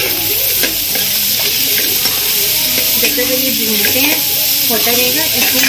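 Onions, carrots, beans and freshly added capsicum sizzling in hot oil in a kadhai, with a steady hiss, while a spatula stirs them, scraping and tapping against the pan.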